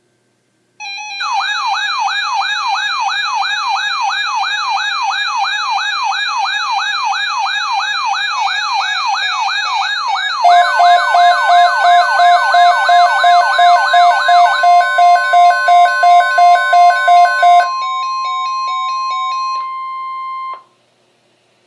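Weather radio alert: a warbling siren sweeping up and down about three times a second, joined about ten seconds in by rapid pulsing beeps and the steady NOAA Weather Radio warning tone. The siren and beeps stop, and the steady tone carries on alone for a few seconds before cutting off, signalling an incoming flood watch.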